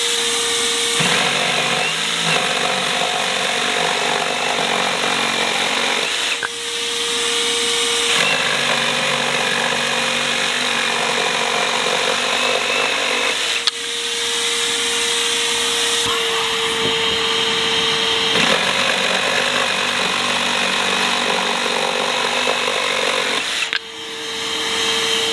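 Ridgid Octane 18V brushless cordless jigsaw sawing through a pressure-treated 2x6 at its highest orbital action and speed, giving a loud, rough cutting sound. The cutting comes in three stretches of about five seconds each. In the pauses between them a steady whine carries on.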